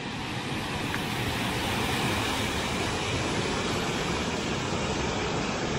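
Water pouring steadily over a low concrete weir on a canal: a continuous, even rushing.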